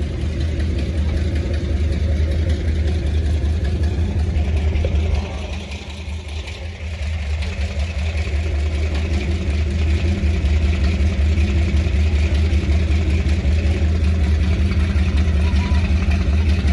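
Deep, steady exhaust rumble of car engines idling and rolling slowly, with crowd voices mixed in. The rumble drops back for a few seconds in the middle, then returns louder.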